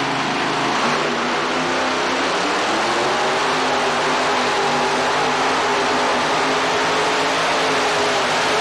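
Two-wheel-drive pulling truck's engine running at high revs under full load as it drags a weight-transfer sled, the pitch held nearly steady.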